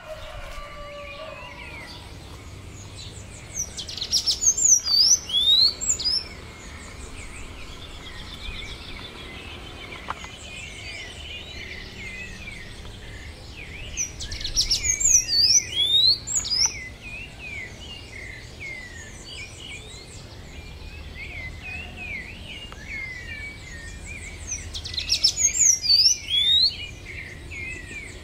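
Birdsong: one bird sings a loud, rapid song of chirps and sweeping whistles three times, about ten seconds apart, over steady lighter chirping from other birds.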